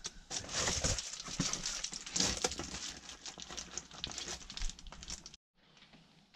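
Reflective foil bubble insulation crinkling and rustling as it is handled and pressed into place by hand, with many small crackles. It cuts off suddenly about five seconds in.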